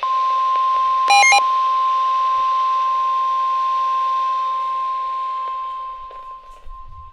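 NOAA Weather Radio's 1050 Hz warning alarm tone: one steady, loud high tone that starts abruptly and drops in level near the end, signalling that a warning message follows. A short burst of electronic beeps sounds about a second in.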